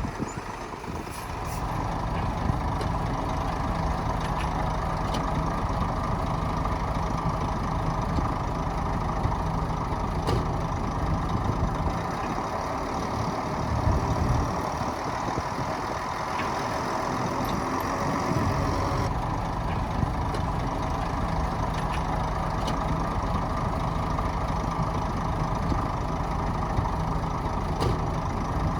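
Heavy diesel engine of earthmoving machinery running steadily under load, with a few sharp clicks.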